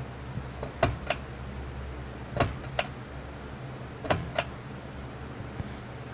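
Casablanca Panama ceiling fan running with a steady low hum. Three pairs of sharp clicks come at even intervals about a second and a half apart.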